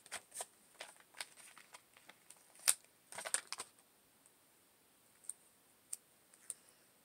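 Faint clicks and crackles of planner sticker sheets and paper being handled: scattered light clicks, a sharp click a little under three seconds in, a short run of crackling just after it, then three sparse clicks.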